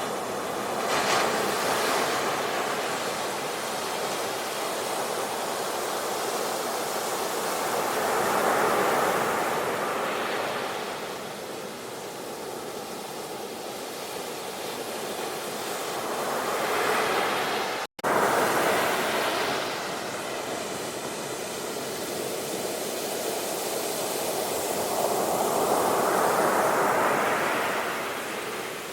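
Sea waves breaking and washing on the shore, the surf swelling and fading in slow surges about every eight seconds. The sound cuts out for an instant about two-thirds of the way through.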